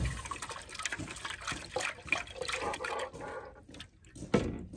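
Water being poured and sloshing, irregular and splashy, with a sharp thump near the end.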